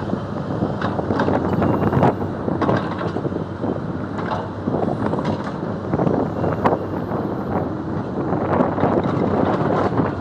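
Wind buffeting the microphone in uneven gusts over a steady low rumble.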